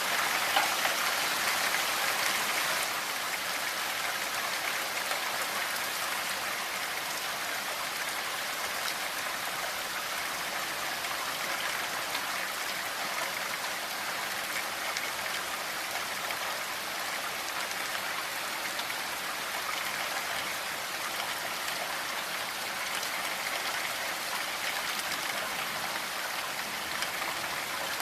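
Steady rain falling, an even hiss of many drops, a little louder for the first few seconds and then constant.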